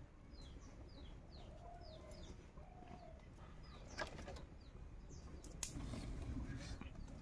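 Birds calling in the background: a quick run of short descending chirps, and a few short lower calls. Two sharp clicks stand out partway through.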